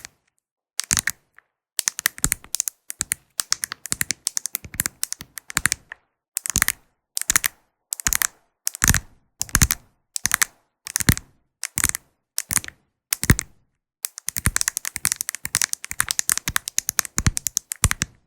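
Crisp clicking taps on a mirror ball's small mirror tiles, in short clusters with brief silences between. Near the end they turn into a quicker, denser run of clicks.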